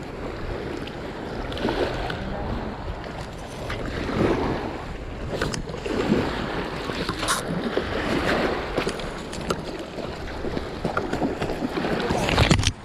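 Wind buffeting the microphone over small waves washing on a rocky shore, with a few sharp clicks. Near the end the camera is handled, giving a loud rubbing burst that stops abruptly.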